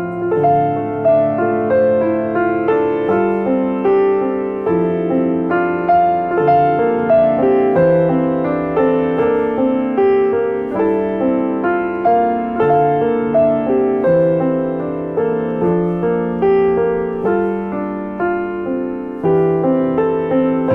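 Background piano music: a gentle melody of struck notes, about one or two a second, each dying away.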